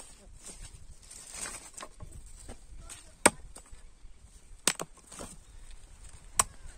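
Machete chopping cassava stems against a wooden beam: three sharp chops about three, four and a half and six seconds in, with fainter knocks and rustling of dry stalks between.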